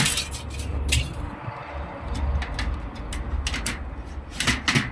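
Thin zinc roofing sheet being trimmed with a hand cutting tool: sharp metallic clicks and crinkles, with a cluster of louder snips near the end, over a steady low rumble.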